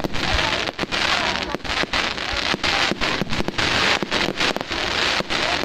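Fireworks display: a dense, continuous crackle punctuated by many sharp, irregular bangs.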